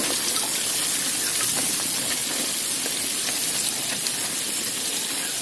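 Sliced onions frying in hot oil in a wok on a gas stove: a steady sizzling hiss with small scattered pops.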